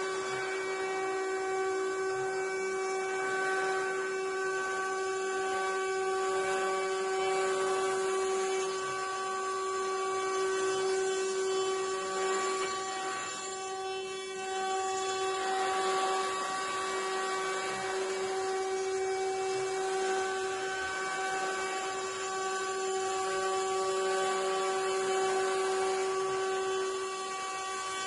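The 800 W spindle of a mini CNC wood router whines steadily at one pitch while its bit mills a shape out of a pine board, with the hiss of cutting under the whine.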